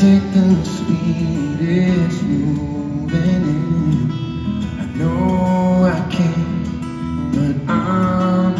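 Solo acoustic guitar played live through the arena sound system, a continuous picked and strummed passage.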